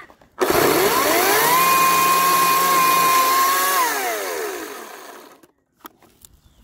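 Ryobi 40V brushless cordless battery chainsaw spinning up with a rising electric whine, running at a steady pitch as it cuts through a fallen branch, then winding down to a stop about five seconds in.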